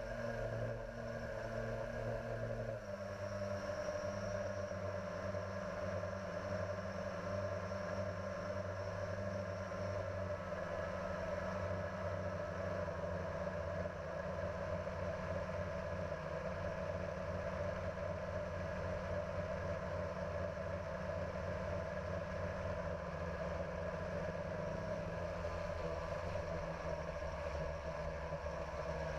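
Hovering drone's electric motors and propellers, heard from its onboard camera: a steady buzzing hum whose pitch shifts about three seconds in and again near the end as the motor speeds change.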